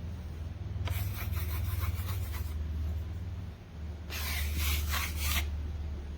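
Electric random orbital sander running with a steady low hum, its sanding disc rubbing across a surface in two passes: about a second in, and again about four seconds in.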